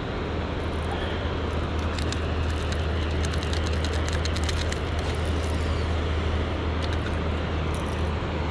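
A boat motor runs with a steady low hum as the boat moves through the water. Small metal clicks and rattles from a lure's hooks come through in the middle, as the lure is worked out of a white bass's mouth.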